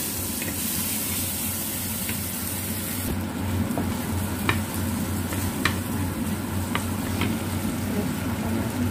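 Chopped shallots, garlic and red chilies sizzling in oil in a nonstick frying pan while a wooden spatula stirs them, being sautéed until fragrant. A few sharp ticks stand out in the second half.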